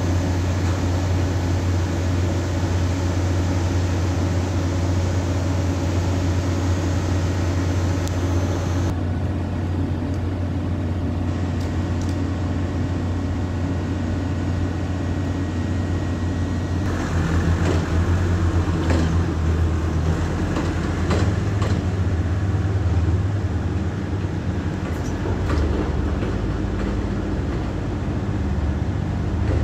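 Steady low drone of shipyard machinery, with scattered knocks and clanks in the second half.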